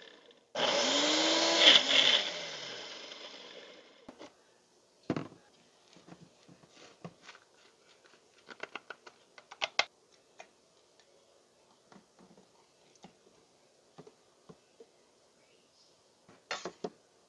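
Countertop blender running briefly on a jar of ice and milk: it starts abruptly, its motor pitch rises and then falls as it winds down over about three seconds. A thump follows, then scattered light knocks and clinks of the jar, spoon and ice in a glass, with a quick run of clinks near the end.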